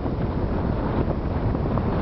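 Wind buffeting the microphone: a steady low rumble with no distinct strikes.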